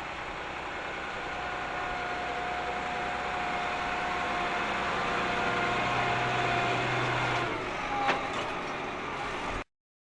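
John Deere 7280R tractor's six-cylinder diesel engine working steadily, growing louder. About seven and a half seconds in, the engine note changes and a sharp knock follows. The sound then cuts off suddenly.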